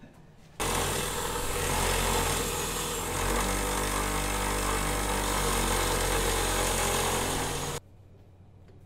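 Bench grinder running with a metal part held by hand against the wheel: a steady grinding hiss over the motor's hum. It cuts in abruptly under a second in and stops abruptly near the end.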